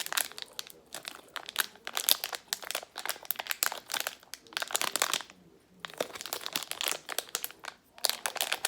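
Crinkly plastic toy packaging being handled and pulled open, in irregular bursts of crackling with a short pause a little past the middle.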